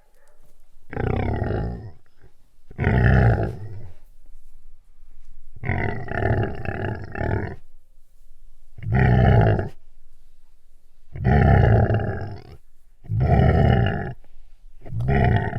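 A large animal growling: about seven rough, deep growls, each a second or so long with short pauses between them. The growl about six seconds in is the longest, and the last is cut off at the end.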